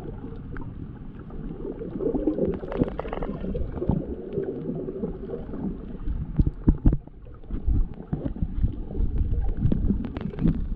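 Muffled water sloshing and bubbling with scattered knocks, heard with the camera in the water while snorkeling.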